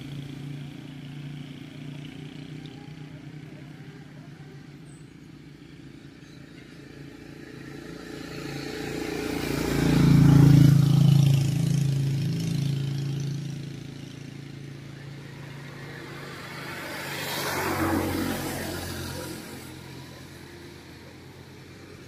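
Motor vehicles passing by, an engine hum that rises and fades. It is loudest about ten seconds in, and a second, quieter pass comes near the eighteen-second mark.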